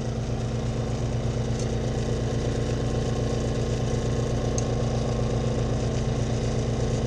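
Portable generator running with a steady, even hum, over the sizzle of fish fillets frying in butter in a skillet.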